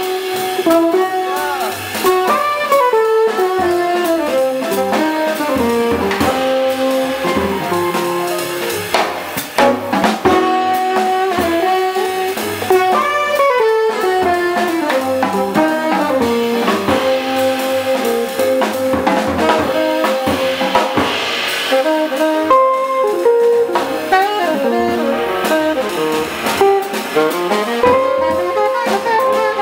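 Jazz quintet playing live: a saxophone carries a flowing melodic line of held and sliding notes over a drum kit, with double bass, piano and archtop guitar accompanying.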